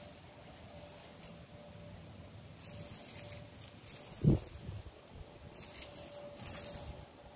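Faint rustling and scraping of a dry leafy branch and straw over bare dirt as it is moved in front of a cat that paws at it, in two short spells, with a single low thump about four seconds in.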